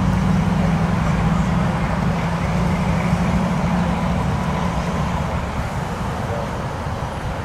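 Low engine rumble of a road vehicle nearby, loudest at first and slowly fading.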